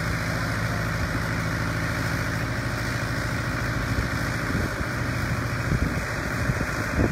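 An engine running steadily at idle, a low droning hum, with a few knocks in the second half and a louder bump near the end.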